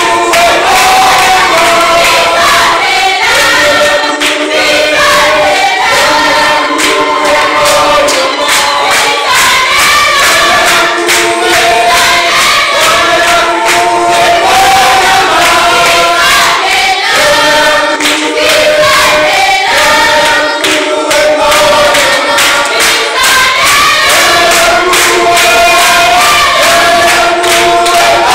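Church congregation singing together in chorus, several voices in parts, over a steady beat of sharp percussive hits.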